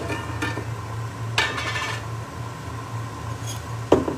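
Glass spaghetti storage jar being handled and dry spaghetti pulled out of it: small clicks, then a ringing glass clink about a second and a half in and a sharp knock near the end. A steady low hum sits underneath.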